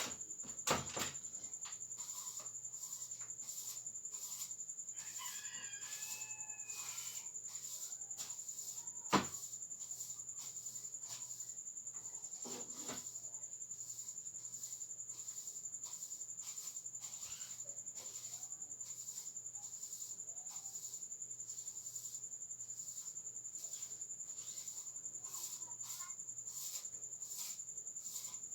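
Crickets chirping, a steady high trill pulsing a few times a second, with a rooster crowing faintly about five seconds in. A sharp knock about nine seconds in.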